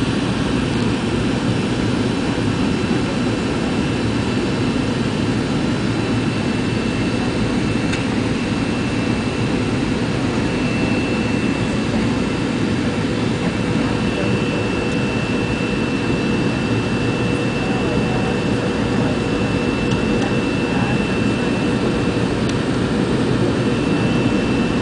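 Steady in-cabin noise of an MD-82 climbing out just after takeoff: rushing air and the drone of its two rear-mounted Pratt & Whitney JT8D turbofans at climb power, with a thin high whine held steady on top.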